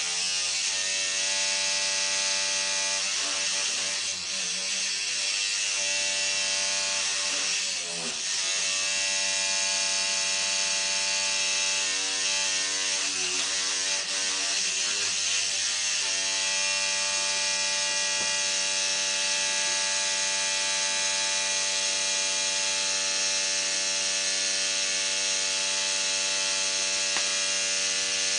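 Electric toothbrush running with a continuous buzz. The tone wavers and dips a few times in the first half, then holds steady.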